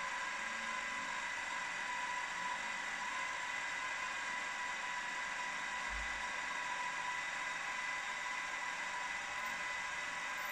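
Bench milling machine's spindle running steadily with an even whine while a drill bit cuts a hole in a brass cylinder end plate. The hole is the tapping hole for a small BA thread.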